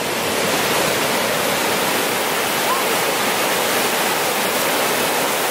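Ocean surf on the beach: a steady, even rush of breaking waves with no rises or pauses.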